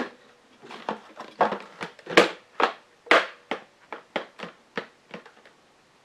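Irregular run of light clicks and knocks from a clear plastic water tank being handled against a small dehumidifier's body, stopping near the end.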